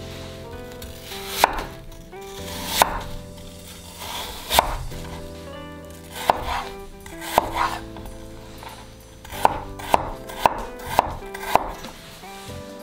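Kitchen knife cutting a peeled apple on a bamboo cutting board: about ten crisp knocks of the blade going through the apple onto the board. The first few come a second or more apart, then five follow quickly, about two a second, near the end.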